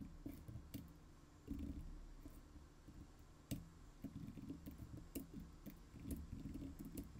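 Typing on a computer keyboard: quiet, irregular key clicks.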